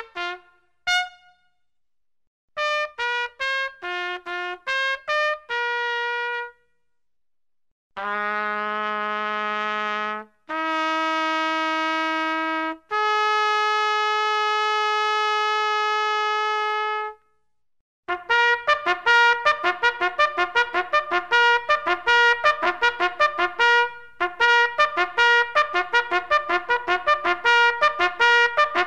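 Solo trumpet playing alone: a few quick short notes, a group of short notes ending on a held note, then three long sustained notes, each higher than the one before. From about 18 seconds in, a long run of fast, rapidly tongued notes, broken briefly once.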